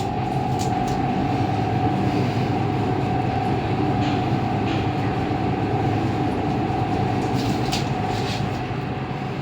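Passenger lift car travelling in its shaft: a steady rumble and hum with a constant whine, swelling slightly after the start and easing near the end, with a few light clicks near the end.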